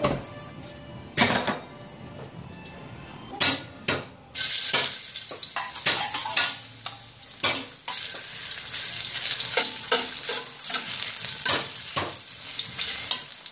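A few sharp knocks of utensils on a wok, then shiitake mushrooms going into hot oil about four seconds in: a sudden sizzle that carries on as a steady frying hiss. A metal spatula clicks and scrapes against the wok while they fry.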